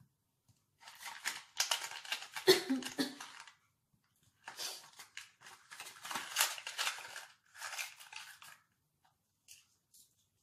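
Small cardboard raisin box being opened and handled, with rustling and tearing in three stretches and a sharp snap about two and a half seconds in.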